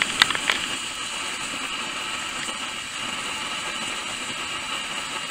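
A pressurised M1950 camp stove burner running with a steady hiss, heating a can of coffee water toward the boil. A few faint clicks in the first half-second.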